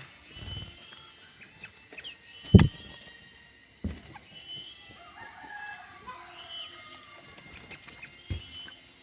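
A rooster crows once, about five seconds in, among repeated short high bird chirps. Several loud dull thumps come through, the loudest a little over two seconds in.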